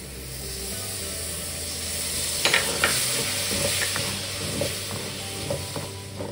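Curd sizzling as it hits hot ghee and fried grated raw turmeric in a metal kadhai, growing louder over the first couple of seconds. A spatula stirs it in, knocking and scraping the pan with a few sharp clicks from about two and a half seconds in.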